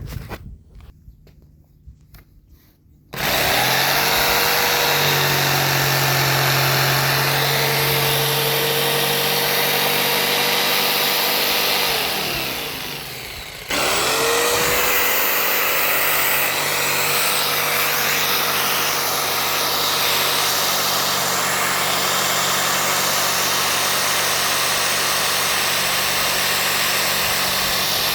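Electric jigsaw with a marble blade cutting quartz countertop, a loud steady motor whine over grinding noise. It starts about three seconds in, winds down around twelve seconds in, then starts straight up again and keeps cutting.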